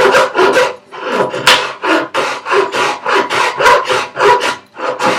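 Half-round bastard metal file rasping wood in rapid back-and-forth strokes, with a short pause about a second in. The file is fairing the wooden recess for a woodworking vise down to the layout line and shaping its curved radius.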